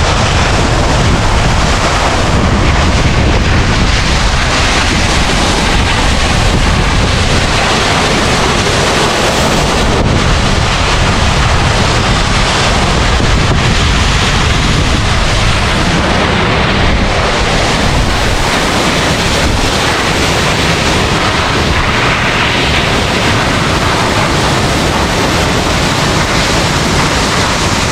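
A large waterfall swollen by monsoon rain, heard close by as a loud, steady rush of falling water, with wind buffeting the microphone.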